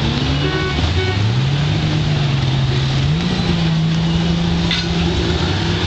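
Several Honda Gold Wing touring motorcycles riding slowly past one after another, their engines running with a steady low hum that rises in pitch twice, about a second in and about three seconds in, as riders pull away.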